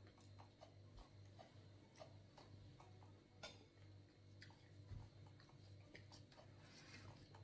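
Near silence: faint, irregular small clicks and taps of eating at a table, over a low steady hum.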